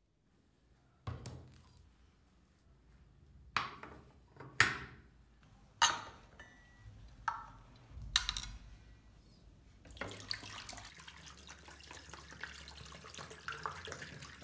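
Rusty steel wrench parts set down one by one in a glass tray, giving about six sharp knocks. About ten seconds in, vinegar starts pouring steadily from plastic bottles into the tray over the parts.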